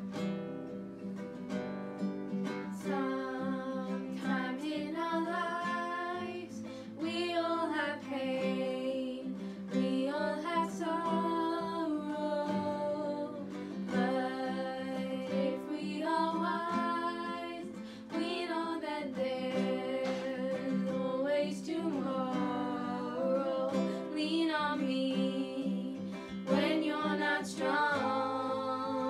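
Strummed acoustic guitar with two female voices singing a song together; the guitar plays alone at first and the singing comes in after about two seconds.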